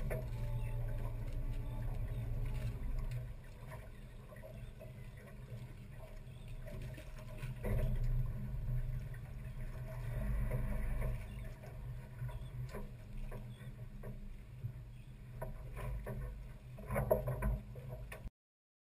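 Boat engine idling at low speed with a steady low hum as the boat comes alongside a dock. A few sharp knocks come near the end, then the sound cuts off.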